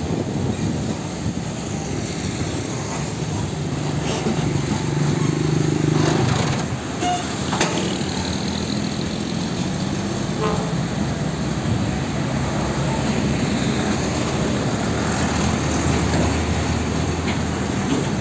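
Heavy diesel trucks, one hauling a shipping container, driving slowly past one after another, their engines droning low. Loudest about six seconds in.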